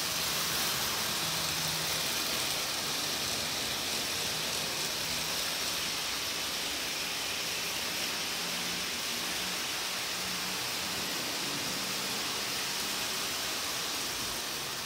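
Lionel MPC-era Blue Comet O gauge train running on three-rail track: a steady rolling hiss from its wheels and motor, with a faint hum that comes and goes. Its sound board has shorted out, so no steam chuff or whistle is heard.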